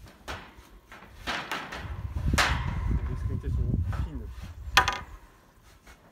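Wooden fence slat being pushed down and woven through a rigid welded-wire mesh panel, rubbing and knocking against the wires. There are several sharp knocks, the loudest about two and a half and five seconds in.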